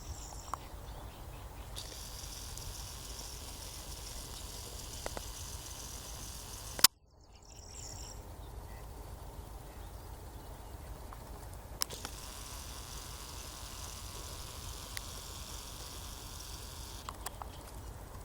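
Outdoor nature ambience: a steady high-pitched insect chorus over a low rumble. About seven seconds in there is a sharp click and a brief dropout, after which the chorus resumes.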